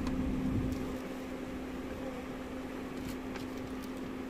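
Steady hum of a stopped car with its engine running, heard inside the cabin, with one constant tone. A low rumble fades out about a second in, and a few faint light clicks come later.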